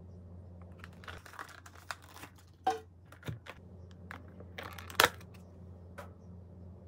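Clear plastic takeout container crinkling and clicking as it is handled and tilted in the hands: a run of irregular crackles and clicks, the loudest about five seconds in.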